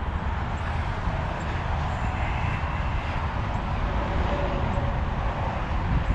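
Truck engine running, a steady low rumble.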